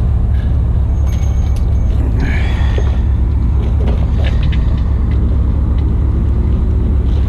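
A steady, loud low rumble of an engine idling, with small clicks and taps scattered over it.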